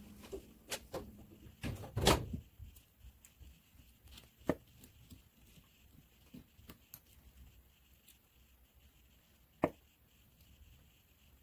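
Scattered light taps, clicks and scratches of small pointed tools and fingers picking seeds out of strawberries over paper towels on a table, with a few sharper taps.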